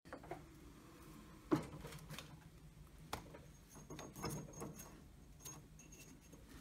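Quiet clicks and knocks from a DeWalt DWS779 sliding compound miter saw being handled, a hand working the bevel lock lever at the back of the saw head. The loudest knock comes about a second and a half in, with a few lighter clicks after it.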